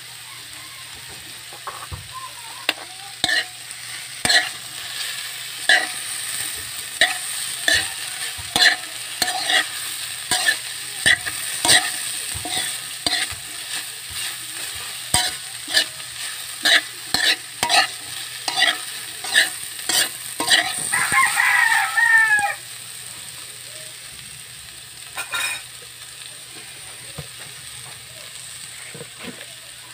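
A metal spoon stirring green papaya strips sautéing in a metal pot: the spoon clinks and scrapes against the pot every second or so over a steady sizzle of frying. The clinking stops about two-thirds of the way through, leaving the sizzle, and a brief animal call sounds in the background around then.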